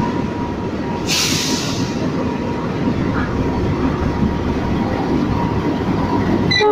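Two GE CC206 diesel-electric locomotives running light through a station, their engines and wheels rumbling steadily as they approach, with a short burst of hiss about a second in. The horn begins to sound right at the end.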